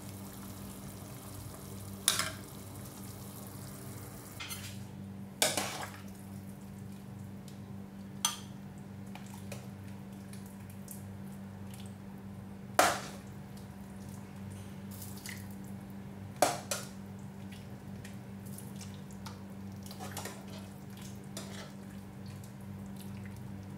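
Ladle clinking against a pot and bowl as soup is ladled out, about five sharp clinks several seconds apart. A steady low hum runs underneath.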